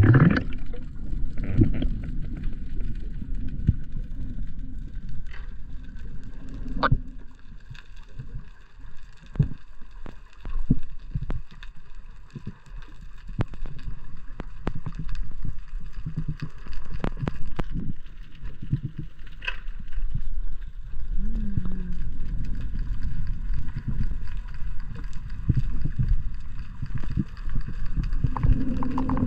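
Underwater sound through a diver's camera: a steady low rumble of moving water, with scattered sharp clicks and crackles and a faint steady high hum throughout.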